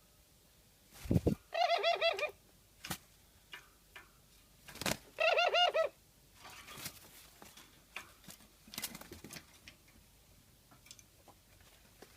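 A pet dove gives two short, quavering, trembling calls a few seconds apart, with sharp taps and knocks around them.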